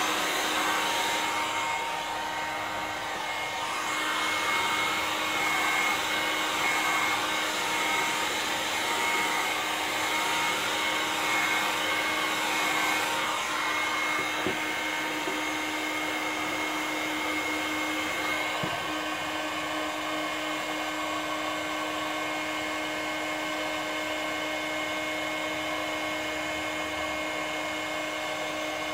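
Electric heat gun running steadily, its fan blowing hot air with a steady whine. It is heating a PVC sheet to soften it for bending. The sound eases a little about halfway through.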